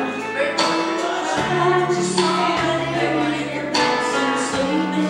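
A girl and a woman singing a song together into microphones, with strummed acoustic guitar and held low notes underneath.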